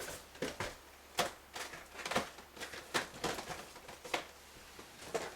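Packaged toys being handled and set down one after another: a scatter of light clicks and knocks, about one or two a second.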